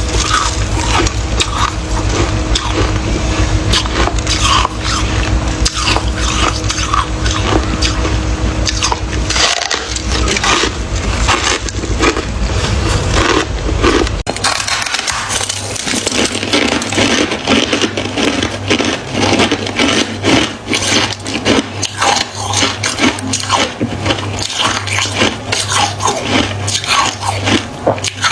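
Freezer frost being bitten and chewed close to the microphone: dense, continuous crunching and crackling, with a low hum underneath that stops about halfway through.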